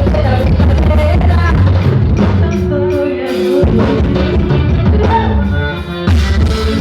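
Forró band music with singing over bass and drums; the bass and drums drop out for about half a second about three seconds in, and again briefly near the end.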